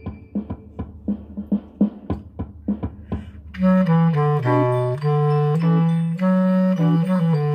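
A backing track plays a run of sharp percussion hits, about four a second, with no held notes. About three and a half seconds in, a bass clarinet comes in playing a low, stepping melody over the accompaniment.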